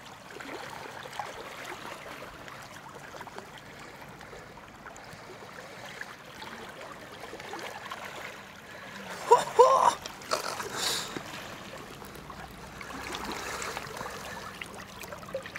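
River water running and lapping around a wading angler's legs, with splashing as a chinook salmon is landed by hand. A short, high-pitched call rises above the water about nine seconds in, the loudest moment.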